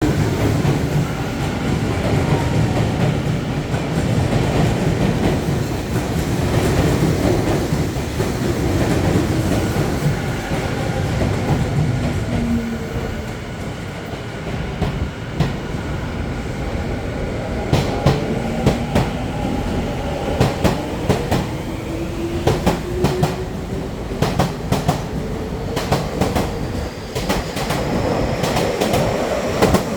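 Tokyu 5050 series 4000-subseries electric train pulling out of a station. A low running rumble gives way to a motor whine that climbs steadily in pitch as the train gathers speed. Wheel clatter over the rail joints comes in over the second half and grows more frequent.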